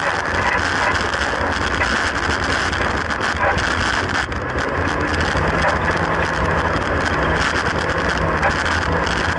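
Classic Mini oval racer's A-series four-cylinder engine running at a fairly steady pitch, heard from inside the stripped cabin under heavy wind and road noise.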